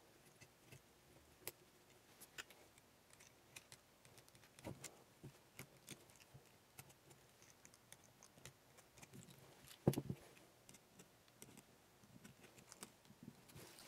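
Faint, scattered small clicks and taps of a screwdriver and hands working on a quadcopter frame, with one louder knock about ten seconds in.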